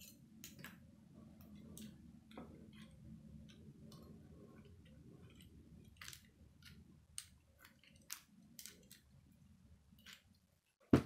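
Irregular small clicks and taps of plastic K'nex pieces being handled and snapped together, over a faint low hum, with one sharp, louder knock at the very end.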